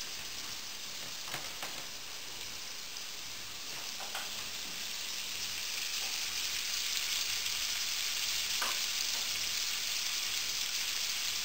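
Marinated beef steaks searing on high heat in a frying pan, in the oil of their Caesar-dressing marinade: a steady frying sizzle with a few small pops, growing louder about halfway through.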